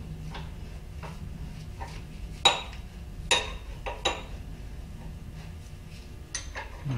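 Steel ball crank handle and fittings clinking against the shaft of a milling machine's table power feed as they are handled and fitted: three sharp metallic clinks a little under a second apart in the middle, with a few fainter taps, over a steady low hum.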